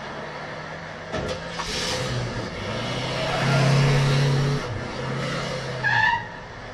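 A motor vehicle engine running under load with a steady low hum that shifts pitch as it revs, dropping out briefly a couple of times.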